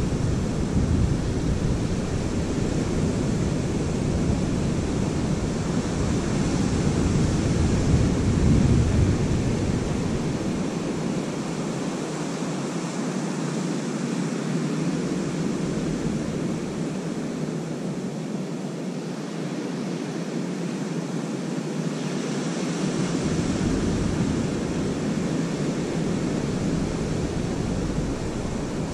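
North Sea waves breaking and washing on a sandy beach, with wind buffeting the microphone; the low wind rumble is strongest in roughly the first ten seconds and eases after that.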